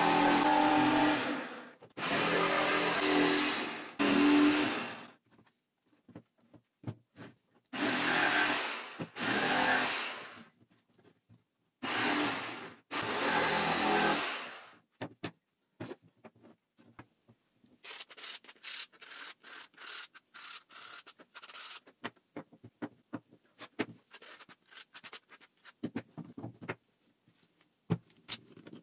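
Electric jigsaw cutting OSB board in four runs of two to three seconds each, stopping and restarting between cuts. After the last cut come quieter scraping, rubbing and clicks of wood pieces being handled.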